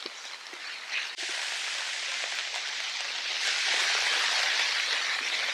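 Steady rain falling on woodland foliage: an even hiss that changes abruptly just over a second in and grows louder from about three and a half seconds in.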